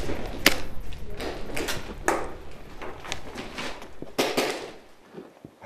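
Airsoft gunfire: irregular sharp clacks and cracks of shots and pellets striking, the loudest about half a second, two seconds and a little over four seconds in, dying down near the end.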